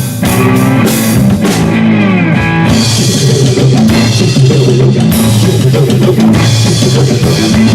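Live rock band playing an instrumental passage: drum kit, bass guitar and electric guitar, with a guitar line bending in pitch a couple of seconds in.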